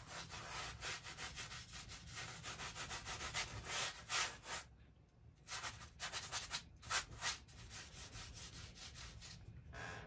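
Flat bristle brush scrubbing oil paint onto a stretched canvas: a dry rubbing in short strokes, about three a second, stopping for about a second midway, then thinning out and fading.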